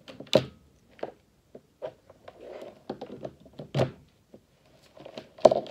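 A string of irregular knocks and thuds from objects being handled, the loudest about half a second in, another near 4 seconds and one near the end, with faint rustling between them.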